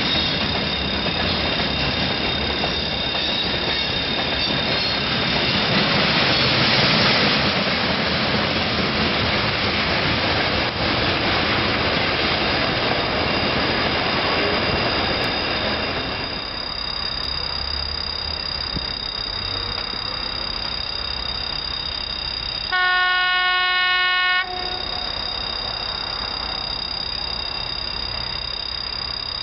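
Freight train wagons rolling past, a steady rumble of steel wheels on rails. After that comes a quieter stretch, then a railway locomotive sounds its horn once, one steady blast of about a second and a half, about three quarters of the way through.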